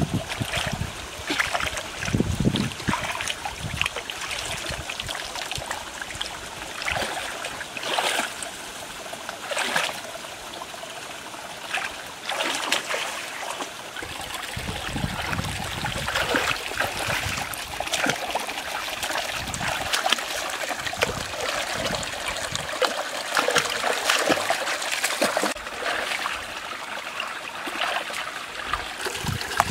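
Shallow rocky stream trickling steadily, with frequent small splashes and sloshes of someone wading and working in the water.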